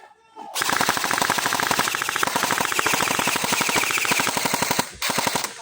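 Airsoft gun firing on full auto: one long burst of rapid, evenly spaced shots lasting about four seconds, then a short second burst near the end.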